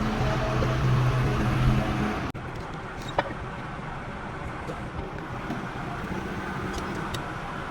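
An engine running with a steady low hum that cuts off abruptly about two seconds in, leaving a quieter mechanical background with a single sharp knock a second later.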